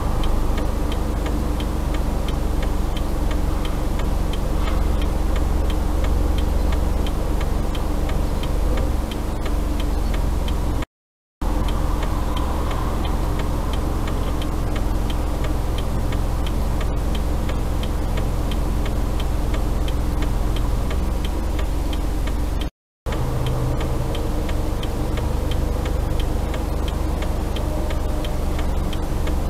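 A car's turn signal clicking steadily over a low engine idle, heard inside the cabin. The sound cuts out briefly twice.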